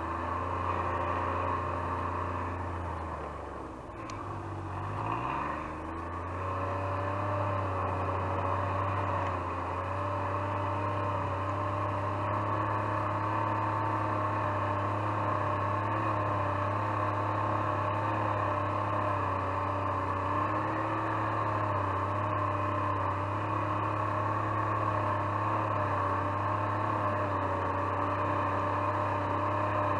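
Snowmobile engine running steadily while towing a trail groomer drag over snow. It eases off briefly about four seconds in, then picks back up to a steady pitch.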